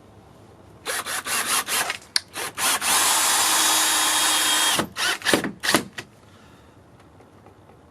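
Electric drill running in several short trigger bursts, then one steady run of almost two seconds with a steady whine, then a few more short bursts before it stops about six seconds in.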